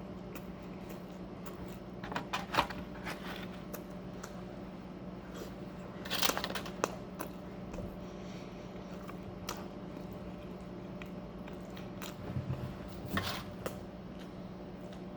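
Close-up chewing and crunching of food in three short bouts, about two, six and thirteen seconds in, over a steady low hum.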